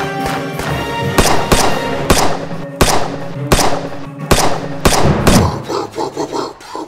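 Film gunfire: about ten sharp, echoing pistol shots in quick, uneven volleys over a music score. The shots stop about five seconds in.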